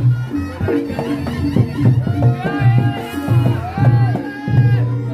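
Live Reog Ponorogo gamelan accompaniment: quick hand-drum strokes over steady, ringing gong-chime tones, with a high, wavering melody line joining about two seconds in and fading out near the end.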